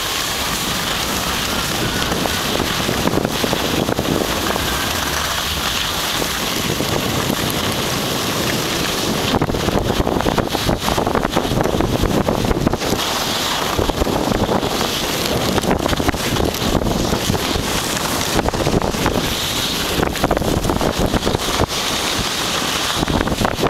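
Wind rushing over the microphone of a camera carried down a ski run at speed, fluttering and buffeting more strongly from about nine seconds in.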